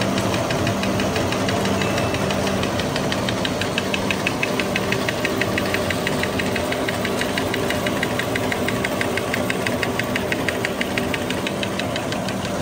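Drinking-straw production machine running, its rollers drawing the plastic tube: a steady mechanical hum with a rapid, even ticking through the middle.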